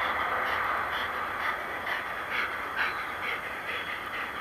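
Boeing 787 jet engines at takeoff thrust, a steady rushing roar that fades as the airliner lifts off and climbs away. Over it comes a run of short rasping sounds, a few a second.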